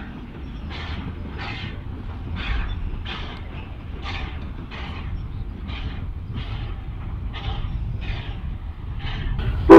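Nevada Northern steam locomotive No. 81 working a train, its exhaust chuffing evenly about one and a half times a second over a low rumble. Right at the end a loud blast of the steam whistle starts.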